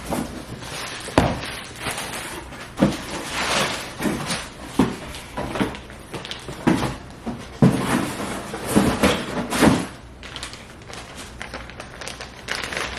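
Packages being handled and unpacked: rustling of cardboard and plastic wrapping with a series of irregular knocks and thumps, the busiest stretch near the end.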